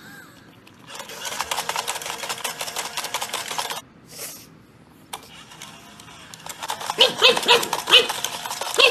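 Small gear-motor in a battery-powered coin-bank toy dog whirring with rapid clicking for about three seconds as the toy dips its head to its bowl and lifts it again. Near the end comes a run of short, high-pitched dog yips, about three a second.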